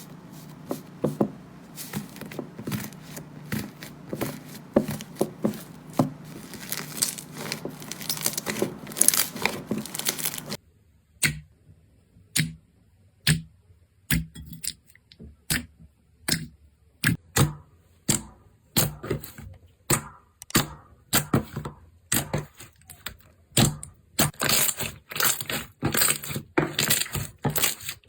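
Slime being pressed and worked in close-up: about ten seconds of continuous crackling and squishing, then a sudden change to separate sharp pops and cracks at irregular intervals, coming thicker near the end.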